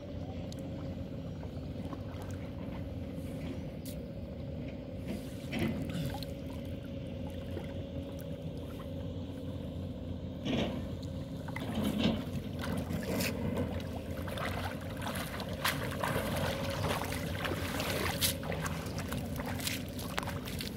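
Boat engine running steadily, under splashing and dripping of water as a wet fishing net is handled and gathered. The splashes come more often after about ten seconds.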